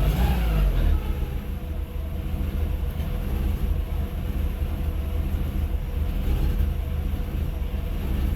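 VW Mk4 1.6 SR four-cylinder petrol engine running, settling from a brief rev in about the first second into a steady idle. It makes the odd noise that the owner asks about as a possible bearing knock.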